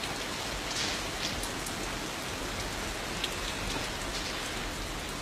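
Steady rain: an even hiss with a few faint drop ticks.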